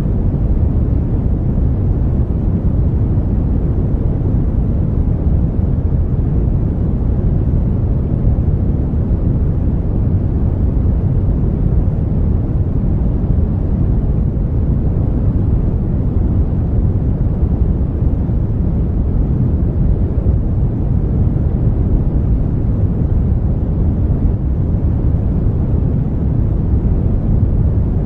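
Brown noise: a steady, even rush of noise weighted heavily toward the low end, deep and rumbling with little hiss, unchanging throughout.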